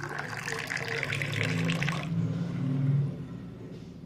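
Water pouring into a cup, running strongly for about two seconds and then tailing off.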